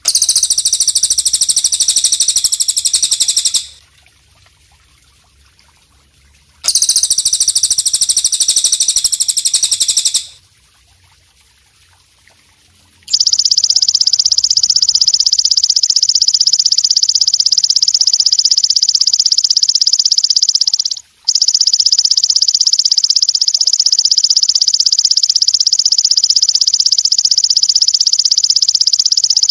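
Green katydid (belalang kecek) stridulating in high-pitched, finely pulsed buzzing trills: two trills of a few seconds each with a pause between, then a continuous trill from about halfway in, broken once briefly.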